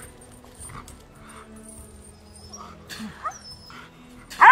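A dog that is being tested for aggression gives brief rising whines about three seconds in, then one loud sharp bark near the end, while reacting to a man crouched in front of it. Background music plays throughout.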